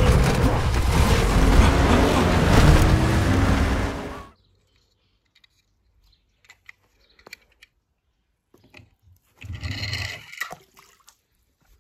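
A loud rushing, rumbling noise with a few held tones under it cuts off abruptly about four seconds in. After a nearly quiet stretch with faint clicks, a small die-cast toy car rolls briefly along a felt-covered ramp, about ten seconds in.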